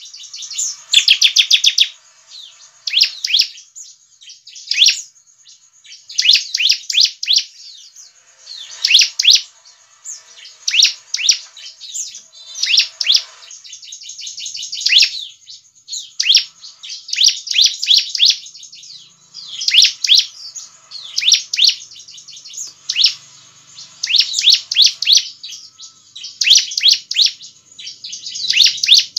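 Bar-winged prinia (ciblek) calling: short bursts of very rapid, high-pitched chirping trills, each under a second long, repeated every second or two.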